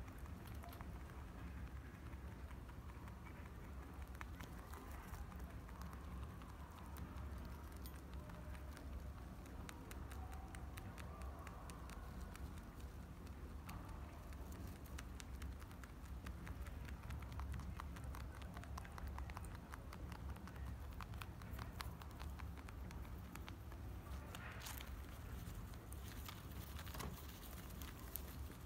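Faint room tone, a steady low hum with scattered small clicks. Near the end come soft crackly rustles as a rabbit noses at cellophane-wrapped chocolates.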